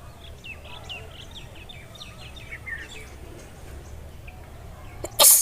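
Birds chirping in quick short calls, then about five seconds in a single sudden sneeze, the loudest sound, brought on by tickling the nose with a long blade of grass.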